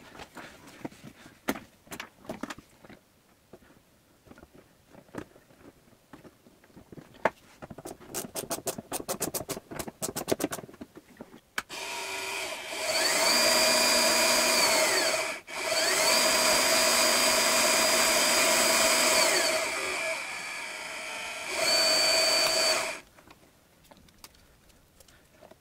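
Small DC gear motor on a variable speed controller running, its whine gliding up as it speeds up and down as it slows. It cuts out briefly midway, runs lower for a moment, then stops near the end. Before it come scattered handling clicks and a quick even run of clicks.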